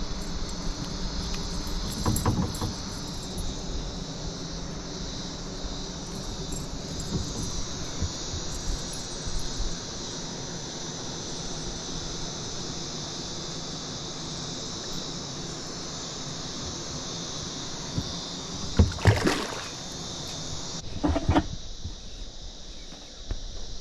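A steady, high-pitched chorus of insects such as cicadas or crickets, with a low hum under it for the first half. Near the end come a few loud knocks and bursts of handling noise, about two seconds apart.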